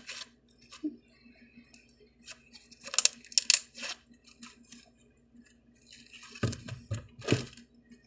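Hands squeezing and stretching glitter slime, which crackles and pops. There are two bursts of crackling, about three seconds in and again near the end, the second with soft low squelching thuds.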